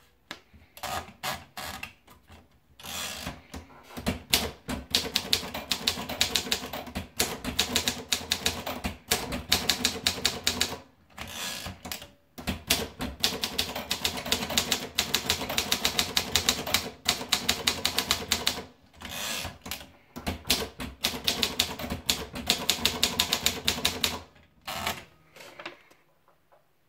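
Olympia Progress typewriter being typed on: rapid runs of key strikes in bursts of several seconds, with short pauses between runs, stopping shortly before the end.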